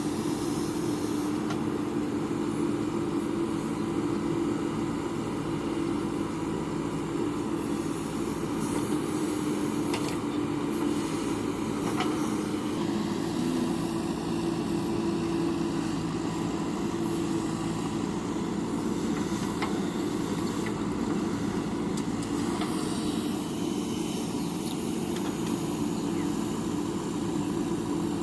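Diesel engine of earthmoving machinery running steadily under load, with a few faint knocks.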